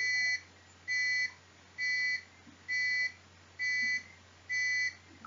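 Electronic two-tone alarm circuit beeping in steady, evenly spaced high-pitched pulses, about one a second, each lasting about half a second. Its rate control is set to the middle of its range.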